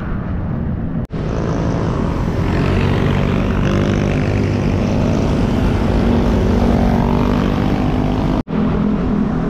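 Road traffic heard from a bicycle on the move: a steady drone of motor-vehicle engines with a hissing rush over it. The sound cuts out briefly about a second in and again near the end.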